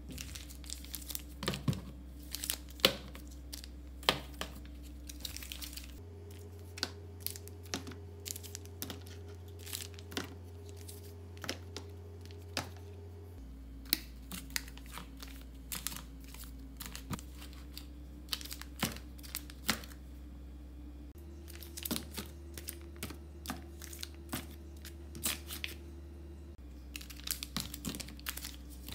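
Foil cat food pouches crinkling as they are handled and set upright in a clear plastic storage box, with many small irregular crinkles and light taps against the plastic.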